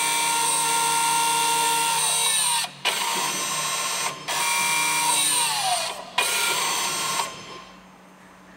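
Electric parking brake motors on a VW Golf's rear brake calipers whirring as the diagnostic tool drives the pistons closed. They run in four spells with short breaks, the pitch sliding down before two of the breaks, and stop about seven seconds in.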